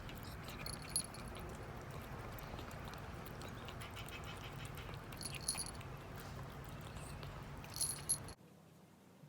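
A small bell jingling in three short spells, about a second in, midway, and near the end, over a low steady hum that cuts off just before the end.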